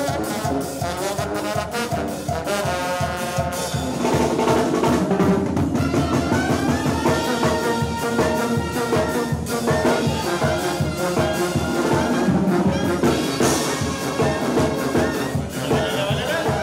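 Live Mexican banda playing a dance tune: trumpets and clarinets carry the melody over a steady, even bass beat.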